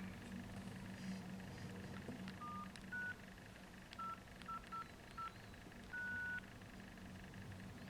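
Nokia 6070 keypad beeps: seven short single-pitch tones at an uneven pace, a few at slightly different pitches and the last one longer, with faint key clicks, over a low steady hum.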